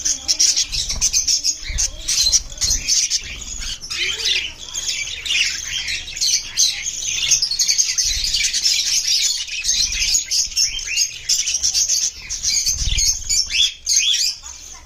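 Several budgerigars chirping and warbling in a dense, unbroken chatter of quick high chirps.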